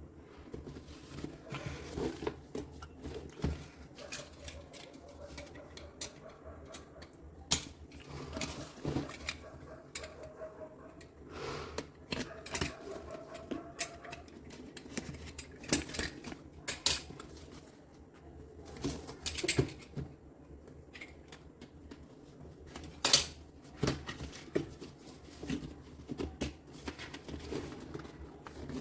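Irregular clicks, taps and light clatter of hard objects being handled.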